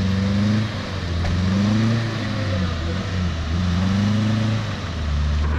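Daihatsu Feroza engine working under load while the 4x4 is stuck in mud and being pulled out on a tow rope, the revs rising and falling several times.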